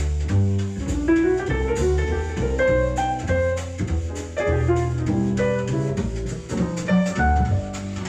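Jazz recording with double bass and drum kit playing back through Edifier S2000MkIII powered bookshelf speakers, heard in the room rather than fed in directly.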